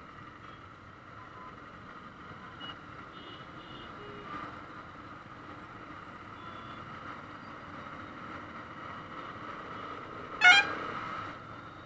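Dense city traffic around a motorcycle, with a few faint horn toots and one loud, short horn honk about ten and a half seconds in.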